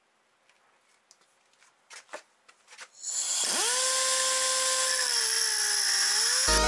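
Pneumatic angle grinder with a cut-off wheel starting up about three seconds in: a rush of air and a whine that climbs fast, then holds steady. Near the end the whine dips as the wheel bites into the wheel bearing's inner race stuck on the hub.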